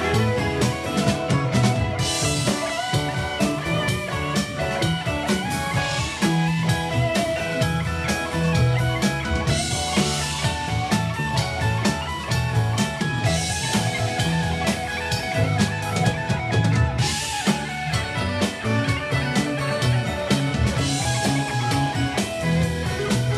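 Live rock band playing an instrumental passage: electric guitars, bass, keyboards and a drum kit keeping a steady beat.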